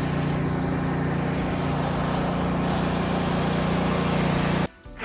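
Truck engine sound effect running steadily at an even pitch, a low hum over a noisy rumble, cutting off suddenly near the end.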